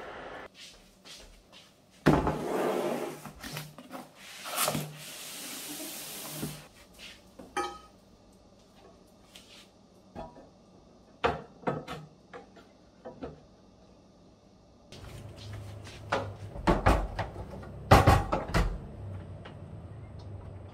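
Scattered knocks, clatters and rubbing of kitchenware and slim induction cooktops being handled and set down on hard surfaces. There is a stretch of rustling a few seconds in and a cluster of heavier knocks near the end.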